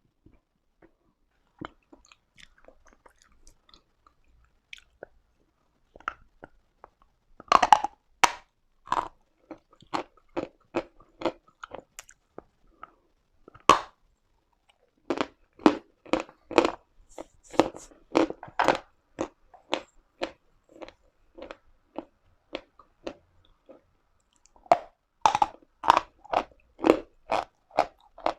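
A person biting and chewing lumps of Uslada chalk, crunching sharply. The first few seconds hold only faint ticks. A loud bite comes about seven and a half seconds in, followed by runs of rapid chewing crunches with quieter gaps between them.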